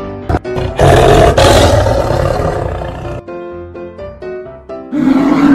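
A toy animal's recorded big-cat roar, loud and rough. It starts about a second in, lasts about two seconds and plays over a simple plinking electronic tune. A second roar starts near the end.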